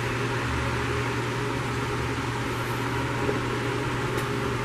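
Steady hiss of an electric fan or blower running, with a constant low hum underneath.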